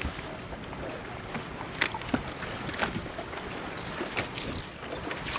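Wind on the microphone and wind-driven chop lapping against a bass boat's hull, a steady rushing noise. A few short sharp sounds stand out, about two, three and four seconds in.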